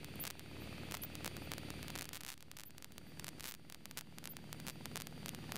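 Faint steady drone of a Cessna's piston engine heard through the cockpit intercom recording, with frequent clicks and crackles of static on the line.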